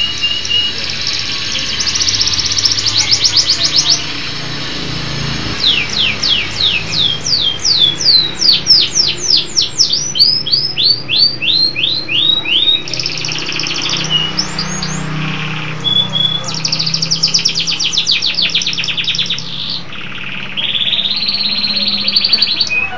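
Local domestic canary singing in full, continuous song. It runs fast trills, then a series of downward-sweeping whistled notes at about three a second, then more rapid trills and a buzzy held phrase.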